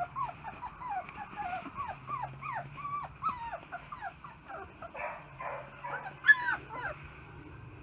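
Young puppies whimpering and yipping: a rapid string of short cries, each falling in pitch, with a louder yelp about six seconds in.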